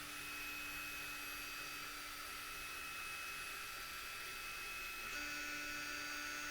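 Faint steady electrical hum and high whine, with a low steady tone coming in about five seconds in.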